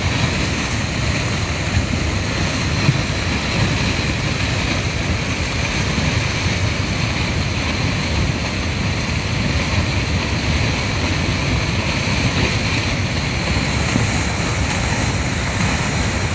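Muddy flash-flood torrent rushing steadily past, a loud, unbroken noise of fast floodwater.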